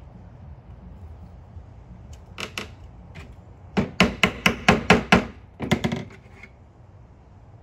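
A plastic-faced mallet tapping a glued wooden dowel into a drilled hole in a pine board. There are two light knocks, then a quick run of about seven sharp strikes, then a few more.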